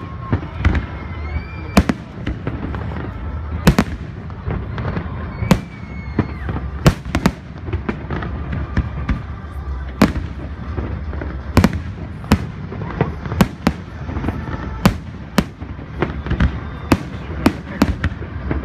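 Aerial fireworks shells bursting in an irregular run of sharp bangs, often one or two a second, over a continuous low rumble.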